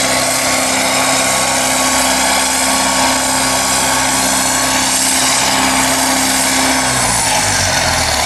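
Tractor diesel engine running steadily, its pitch falling about seven seconds in as the engine slows down.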